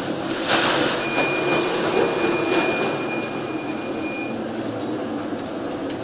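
Waves crashing over a ship's bow in heavy seas, with wind and a surge of spray about half a second in. A steady high whistle sounds from about a second in for some three seconds, then stops.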